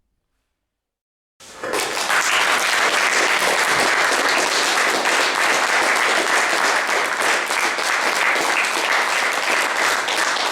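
Audience applauding, starting abruptly about a second and a half in after near silence and then holding steady.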